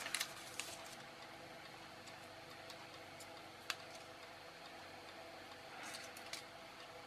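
Faint small clicks and rustles of hands pulling resistors off their paper tape strip and handling the fine wire leads, with a sharper tick near the middle and a short cluster of clicks and rustling near the end, over a faint steady hum.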